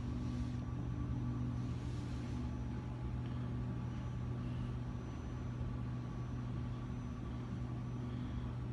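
A steady low mechanical hum with a few faint steady tones above it, holding an even level.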